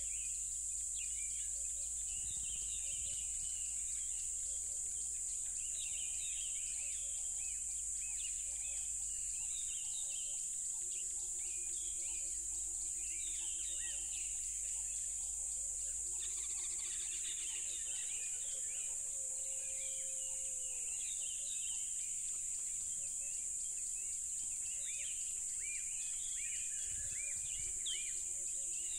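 Crickets trilling: a loud, steady, high-pitched chorus without a break. Many bird chirps and calls sound over it, and a lower pulsed call comes several times.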